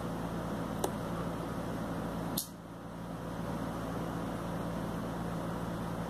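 Steady low hum and hiss of room background noise, with a faint click just under a second in and a sharper click about two and a half seconds in, after which the background turns slightly quieter.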